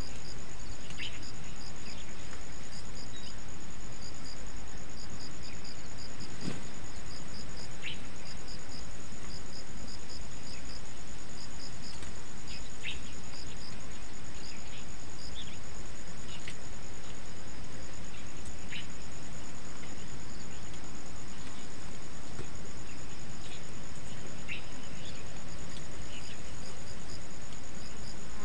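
Insects chirping in a steady, high-pitched, fast-pulsing trill, with short high chirps now and then over a steady background hiss.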